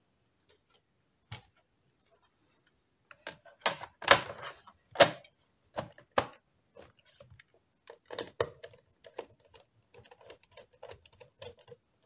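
Plastic clicks and knocks of a laptop's underside being reassembled, with its bottom cover panel handled and fitted back on. A few louder knocks come about four and five seconds in, then a run of lighter clicks.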